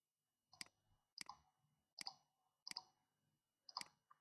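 Computer mouse clicking, about five faint sharp clicks spaced under a second apart, most of them heard as a quick double tick.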